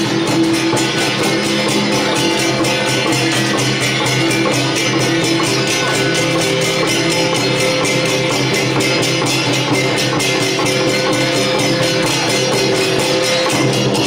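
Temple procession music: rapid, even beats of hand cymbals and percussion over steady held tones.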